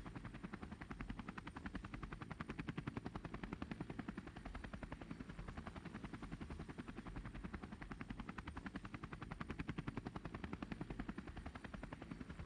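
Helicopter rotor blades chopping in a steady, rapid beat, many pulses a second, without letup.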